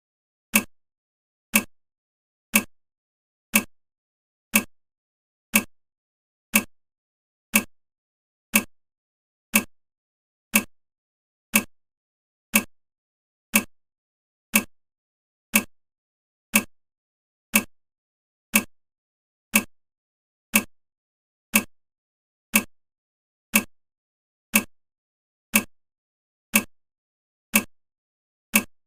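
Timer ticking sound, one sharp tick every second, marking off the seconds of a countdown.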